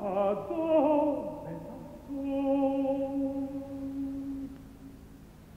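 Music: a single melodic line with vibrato that starts suddenly, slides down through a few notes, then holds one long note that fades away near the end.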